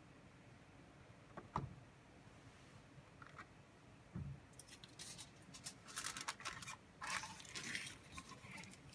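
A small glass sample bottle set down on a lab bench with a soft knock, followed by a few seconds of irregular crinkling and rustling as the aluminium foil cap is handled with gloved hands.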